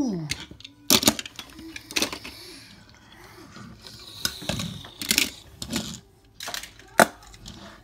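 Toy cars knocking and clattering: scattered sharp clicks and knocks of small hard toys, with a few louder knocks at irregular intervals.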